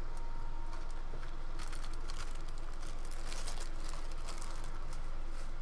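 Thin clear plastic kit bag crinkling as it is handled, an irregular crackle that thickens about a second and a half in and eases off near the end.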